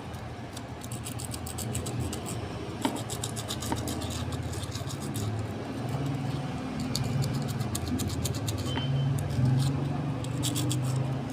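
Quick back-and-forth scraping strokes of an abrasive sanding block rubbed over the plastic top of a small motorcycle battery, over a steady low hum like a running engine.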